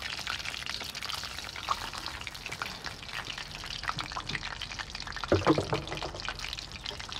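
Hot oil crackling and sizzling in a metal wok-style pan over a wood fire, a dense steady crackle, with a brief louder clunk about five seconds in.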